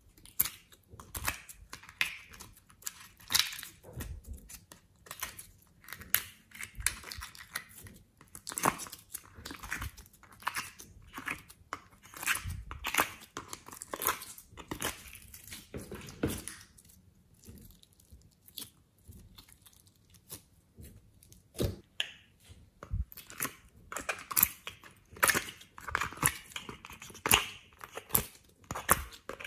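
Soft modelling clay being pressed and peeled out of a clear plastic compartment tray, with irregular crackling and clicking from the plastic and squishing from the clay.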